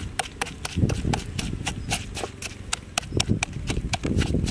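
Wooden pestle pounding and turning shredded vegetables and chilies in a mortar: quick wooden knocks, about four or five a second, with a few heavier, duller thuds of the wet mash.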